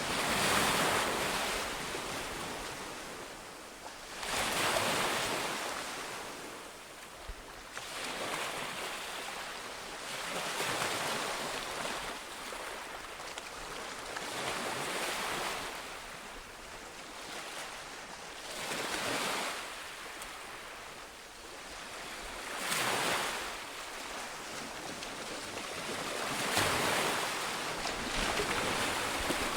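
Sea waves breaking on a shore: one rush of surf after another, each swelling and then fading, about every four seconds.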